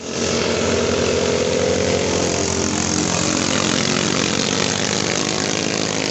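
Small 6.5–8.5 HP racing longtail (ketinting) boat engines running flat out with a steady, high buzz.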